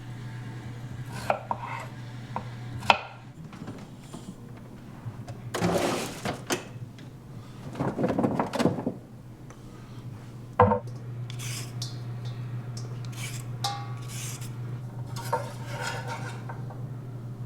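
Dishes, pots and utensils clinking, knocking and scraping while food is prepared, with a couple of longer scraping passages midway. A steady low hum stops about three seconds in and starts again with a sharp click after about eleven seconds.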